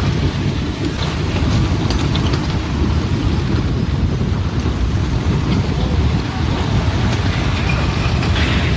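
Mudslide coming down a mountain, a dense, steady low rumbling noise of flowing mud and debris with a few faint clicks.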